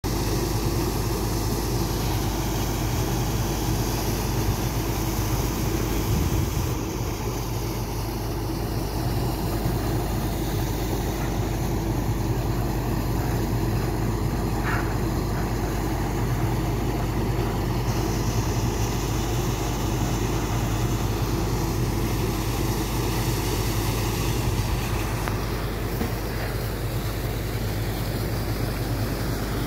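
A truck-mounted tubewell boring rig's engine running steadily with a low drone, over the rush of muddy water gushing out of the freshly bored well.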